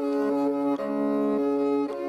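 Kobyz, the Kazakh bowed string instrument, playing a melody over a steady held drone note.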